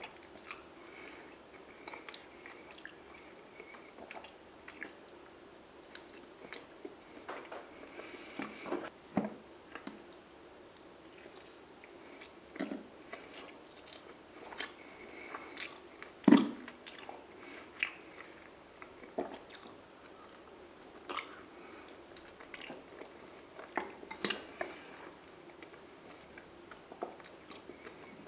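Close-miked wet chewing and lip smacking of soft raw salmon, a steady run of short squishy clicks and smacks, with one louder sharp smack about sixteen seconds in.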